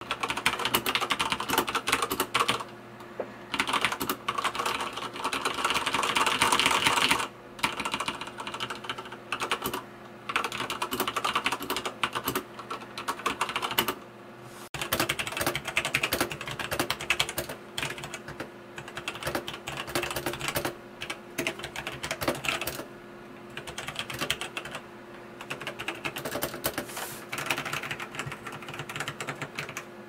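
Typing on mechanical keyboards: a Corsair K63 tenkeyless with Cherry MX Red switches, then, from about halfway, a Logitech G Pro tenkeyless with Romer-G switches. Fast, continuous key clatter in runs with short pauses.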